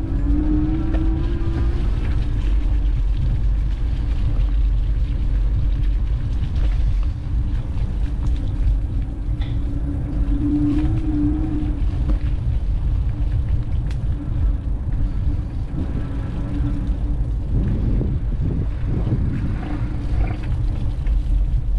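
Steady low rumble of wind and road noise on a GoPro carried on a moving bicycle, with vehicle traffic running alongside.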